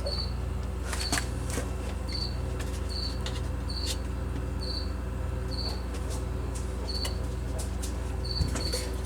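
Refrigerator running with a steady low hum, with short high chirps repeating roughly once a second over it and a few faint clicks.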